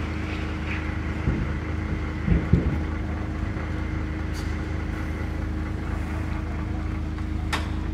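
Heavy lorry's diesel engine running steadily under load while towing a fairground ride trailer through mud. A few low thumps come about two seconds in.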